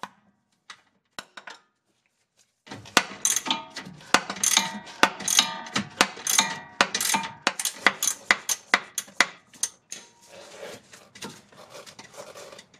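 Metal hand tools clanking and clinking against each other in a rapid, irregular run of knocks with short ringing tones. It starts about three seconds in and thins out near the end.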